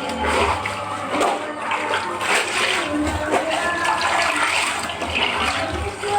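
Water sloshing and splashing in irregular surges as laundry is washed by hand in a tub.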